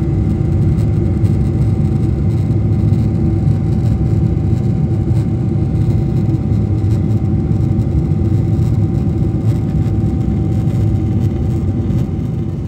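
Steady cabin drone of an Airbus A350-900 airliner in flight: a deep rumble of engines and airflow with a faint steady hum tone above it. The hum tone stops and the drone dips slightly near the end.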